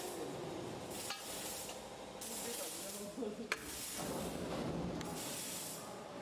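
Square steel tube being slid by hand through a tube punching machine's die, scraping with a hiss in stretches that start and stop abruptly, and a single sharp knock about three and a half seconds in.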